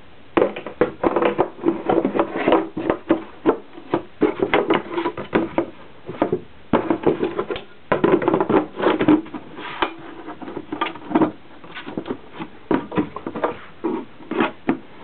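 Irregular knocks, clicks and scrapes of a plastic street-light housing being handled on a cloth-covered surface, with a hollow resonance in the knocks.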